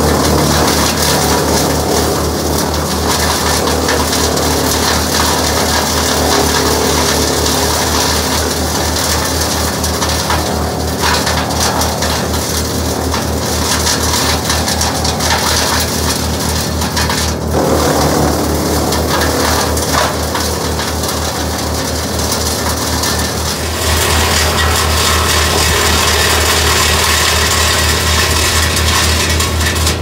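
Först Traxion tracked wood chipper running steadily at full speed while orchard prunings are fed in and chipped. The engine's low drone runs under a dense crunching and cracking of branches, which changes in strength several times as new branches go through.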